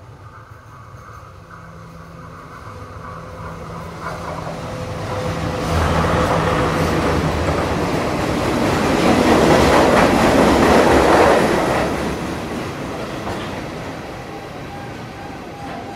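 Diesel multiple unit passenger train (power set) approaching and running past: a low engine drone grows louder, then the rumble and clatter of the coaches' wheels on the rails peaks about ten seconds in and fades as the train goes by.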